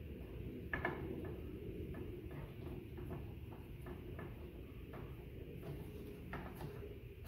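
Light metallic clicks and clinks of hand tools against the headstock of a Craftsman 12-inch lathe: a sharper clink about a second in, then scattered lighter ticks, over a low steady background rumble.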